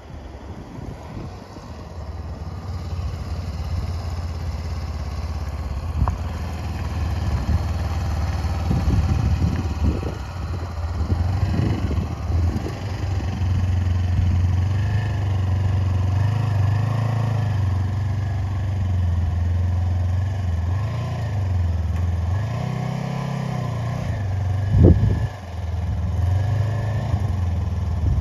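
Honda CB500X parallel-twin engine running at low speed, growing louder over the first few seconds, then the throttle rising and falling as the motorcycle is ridden up an aluminium loading ramp into a pickup bed. A single loud knock near the end.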